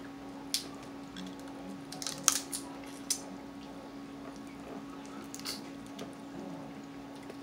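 Boiled Dungeness crab shell being cracked and picked apart by hand while eating: a handful of sharp cracks and clicks, the loudest a little after two seconds in, over a steady low hum.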